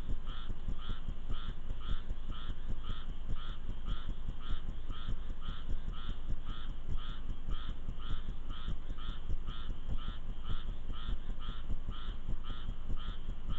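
An animal calling over and over in a steady rhythm, a little over two short calls a second, over a low rumble of wind and rain.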